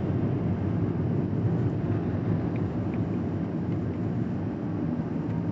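Suzuki Hustler hybrid turbo kei car driving, with its small three-cylinder turbo engine running under a steady rumble of road noise.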